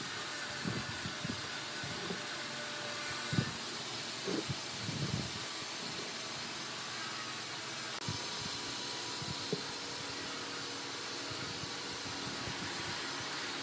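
A steady hiss with scattered light knocks and taps of wooden pieces being handled and glued on a workbench, the clearest knock about three and a half seconds in.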